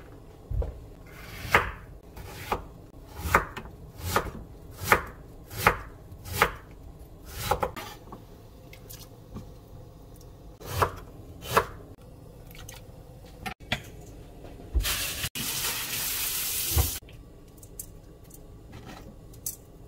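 Kitchen knife chopping on a wooden cutting board: about eight steady strokes, then two more a few seconds later. A brief rushing hiss follows near the end.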